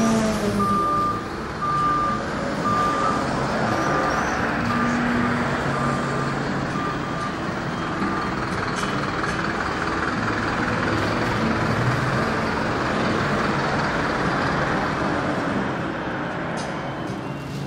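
Truck running with its reversing beeper sounding single-tone beeps about once a second; the beeps fade out about seven seconds in while the engine noise carries on steadily.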